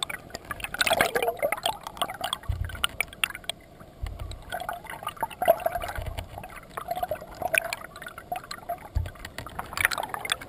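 Flowing stream water heard underwater: gurgling and bubbling with many small clicks, and four short, dull low thumps spread through it.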